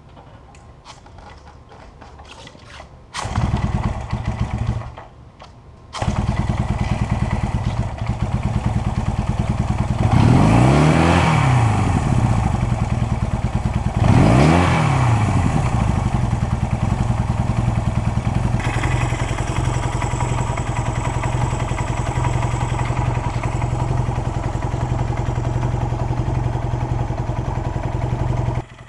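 1971 Honda CL175's parallel-twin engine kick-started after a decompression kick. After a few light clicks it catches about three seconds in, runs briefly and drops out, then starts again about six seconds in. It is revved up and back down twice and then settles to a steady idle.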